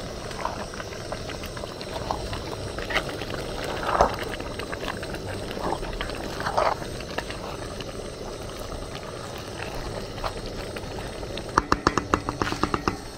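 Pot of vegetable soup bubbling on the boil, a steady simmer with scattered pops. Near the end comes a quick run of sharp clicks and knocks.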